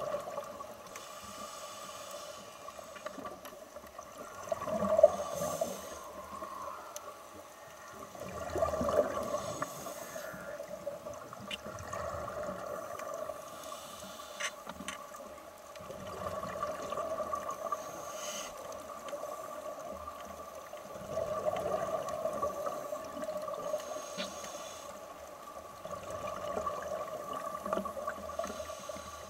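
Muffled underwater sound: a steady two-tone hum with water swishing and bubbling that swells up several times, and a few faint clicks.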